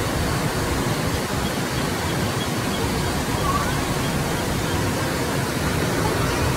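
Steady, even rushing noise inside an elevator car, from its ceiling ventilation fan.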